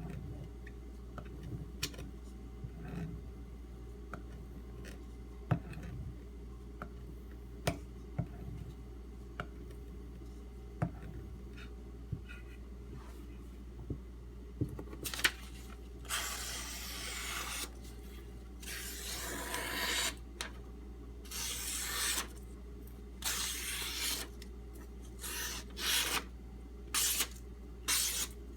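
Scattered light clicks and taps, then from about halfway a knife blade rasping across a whetstone in repeated strokes, some short and some drawn out for a second or two, coming faster near the end.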